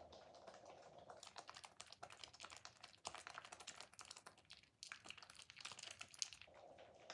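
Soaked white soap bar squeezed and rubbed in the hands against a wet sponge: faint wet crackling and squishing in two spells, with a short break just before five seconds in.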